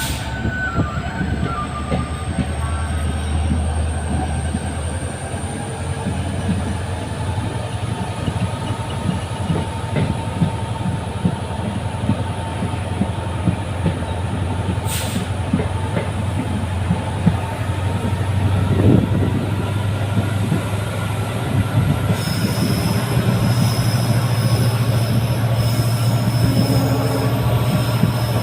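Express train running and picking up speed behind an EMD WDP-4D two-stroke diesel locomotive. A steady low engine hum sits under the clatter of wheels on rail joints, with a high whine rising in pitch over the first several seconds. A steady high-pitched tone joins about two-thirds of the way in.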